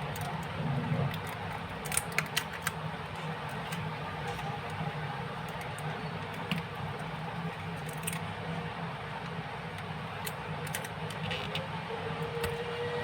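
Scattered light clicks and taps of small-scale repair work on a mobile phone, over a steady low hum; a faint steady tone comes in near the end.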